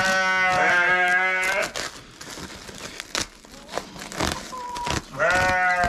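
Several sheep bleating, quavering calls overlapping for the first second and a half and another bleat near the end: a hungry flock calling for feed. A couple of knocks fall in the lull between.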